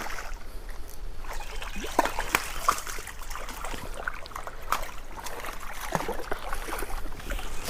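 Water of a river running high, splashing and trickling irregularly.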